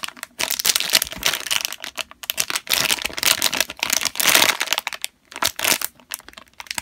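Clear plastic bag of a sealed whale squishy crinkling as hands handle it and squeeze the toy through it, crackling almost without a break for about five seconds before thinning to a few faint rustles near the end.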